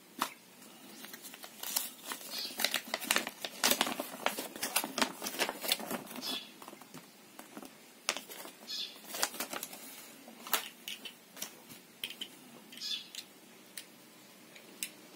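Paper instruction leaflet and cardboard packaging crackling and rustling as they are handled and the leaflet is unfolded. A quick run of crackles and clicks comes in the first several seconds, then the clicks grow sparser.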